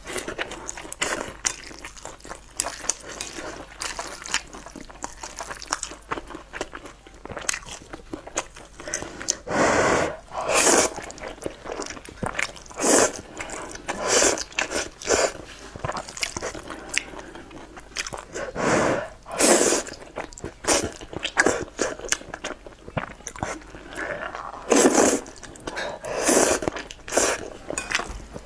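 Close-miked eating of thick noodles in sauce: wet chewing and mouth clicks throughout, with several louder slurps as strands are sucked up.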